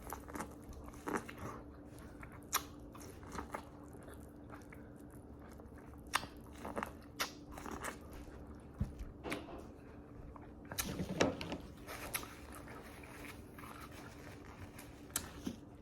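Close-up eating sounds: irregular biting, crunching and chewing on corn and king crab, with short sharp clicks scattered throughout.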